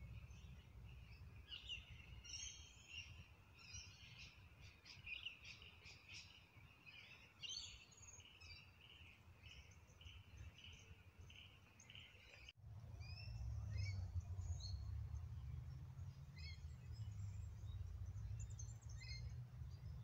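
Faint pond chorus of frogs calling in a steady run of pulses, with birds chirping over it. It breaks off suddenly about twelve seconds in, and a low rumble follows with scattered bird chirps.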